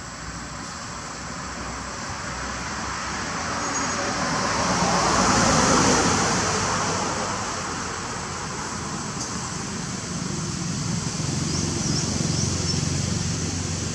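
A passing vehicle: a rushing noise swells to a peak about six seconds in and fades again. Under it runs a steady high insect drone, with a few faint chirps near the end.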